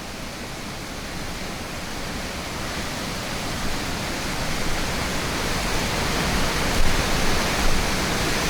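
Steady rushing roar of a waterfall heard from just above it, the water running at several times its usual volume after heavy rains.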